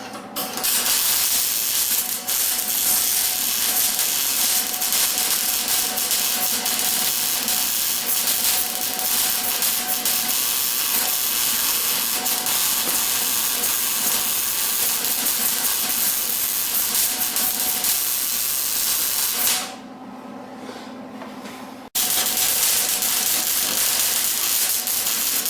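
Gas-shielded MIG welder laying beads on steel patch plates in a rusted truck frame rail: a loud, steady crackling hiss. It stops about 19 seconds in and starts again a couple of seconds later.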